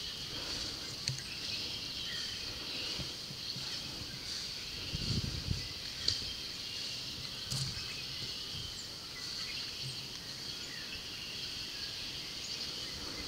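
A steady high insect chorus of outdoor ambience, with a few soft knocks and rustles and a brief low rumble about five seconds in.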